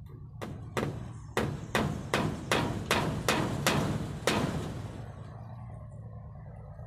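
Hammer blows on the wooden frame of a rabbit pen: about ten sharp strikes in roughly four seconds, then they stop.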